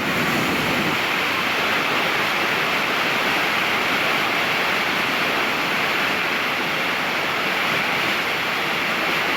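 A loud, steady rushing noise that stays even throughout, with no distinct events in it.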